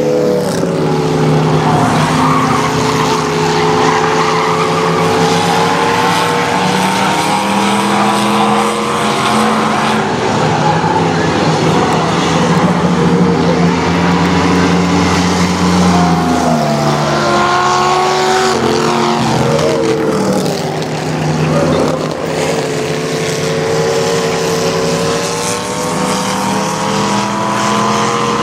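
Engines of a pack of old sedans, linked in three-car crazy-train racing trains, running hard around an oval track. Several engine notes overlap and rise and fall in pitch as the cars work through the laps.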